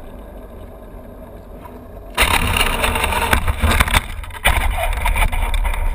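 Traxxas Slash RC truck, heard from on board: a quiet low rumble while it lies flipped, then about two seconds in a sudden loud burst of rattling, knocking, tyre and wind noise as it drives off over pavement.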